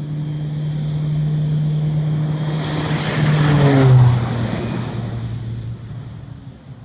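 Beechcraft King Air 200's twin PT6A turboprop engines at takeoff power: a propeller drone with a high turbine whine, growing louder as the plane passes about four seconds in, then dropping in pitch and fading as it climbs away.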